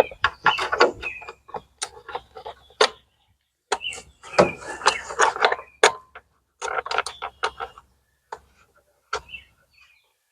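Hand-work on the plastic air filter cover of a lawn tractor engine: a string of quick clicks and taps as the cover is seated and its bolts are put back in, coming in bunches and thinning out in the last few seconds.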